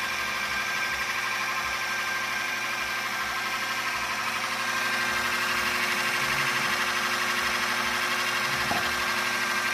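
A small electric motor running steadily: an even whirring hum with a few constant whining tones, growing slightly louder about five seconds in.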